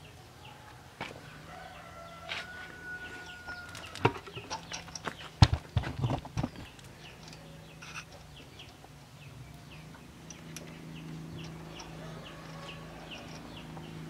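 Sharp metal clinks and knocks as the valve springs and rocker parts of a single-cylinder diesel walking-tractor engine are handled, a flurry of them about four to six and a half seconds in. A rooster crows in the background about two seconds in.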